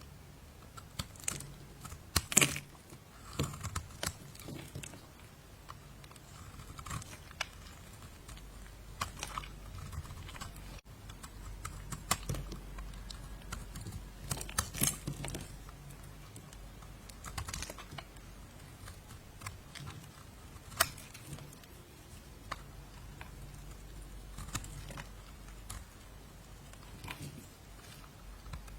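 A knife cutting and carving a bar of soap: irregular crisp clicks and scrapes, with a few sharper snaps standing out.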